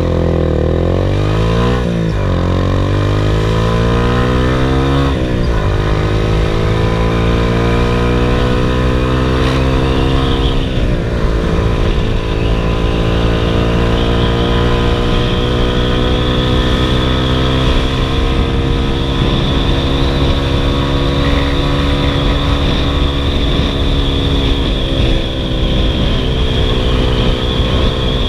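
Yamaha M-Slaz single-cylinder motorcycle engine under way, shifting up three times in the first dozen seconds. It then pulls along at a steady, slowly rising speed.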